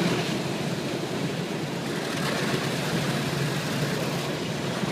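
Steady rumbling and rushing noise heard from the top deck of an Alexander Dennis Enviro500 double-decker bus as it moves through an automated bus wash, with its brushes and water spray on the body.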